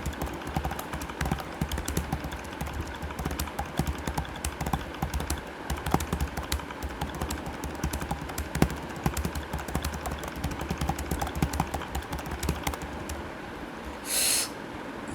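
Fast, continuous typing on a computer keyboard: a rapid, uneven stream of key clicks during a timed typing test, stopping about 13 seconds in. A brief hiss follows shortly before the end.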